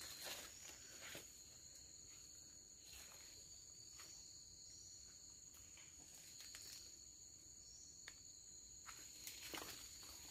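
Faint steady drone of forest insects in two high, unbroken tones, with scattered soft crackles of footsteps on leaf litter that become more frequent and louder near the end.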